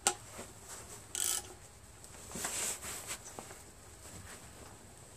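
Socket wrench ratcheting in short rasps, about a second in and again around two and a half seconds in, while the cylinder head bolts of an air compressor pump are tightened down.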